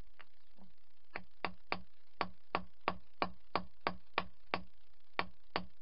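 A steady series of sharp knocks, about three a second, beginning about a second in: something struck or worked over and over at the workbench.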